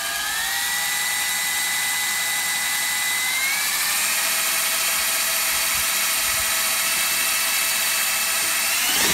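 Cordless drill motor whining steadily as it spins a bent coat-hanger stirrer through thick latex paint. The pitch steps up about three seconds in as the drill speeds up, and climbs again near the end.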